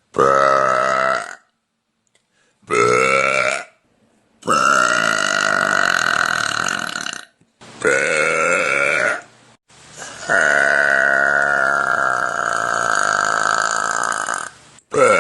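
A woman burping repeatedly: two short burps, then a long drawn-out burp of nearly three seconds, another short one, then a very long burp of about four and a half seconds, with a further burp starting at the very end.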